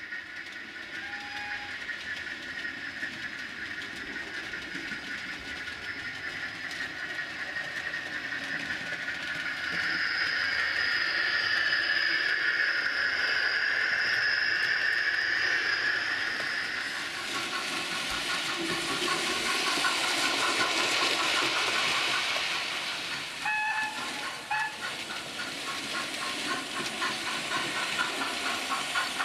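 Sound-fitted (DCC) model steam locomotives playing steam sounds through their onboard speakers: steady steam hiss, a long whistle in the middle, two short whistle toots about two-thirds of the way through, then an even, rapid chuffing beat as a locomotive runs past.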